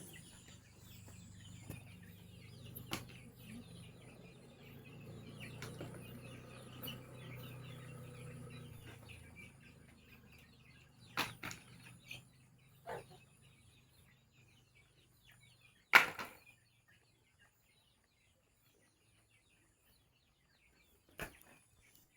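Chickens clucking and peeping over a steady low hum, with a few sharp knocks; the loudest knock comes about two-thirds of the way in, after which it goes nearly silent.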